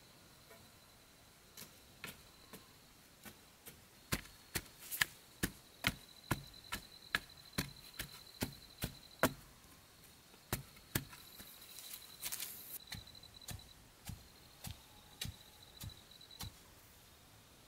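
A wooden stick ramming loose earth around the base of a wooden post, packing the soil so the post stands firm: a long run of dull knocks, about two a second, with a short break about two thirds of the way through.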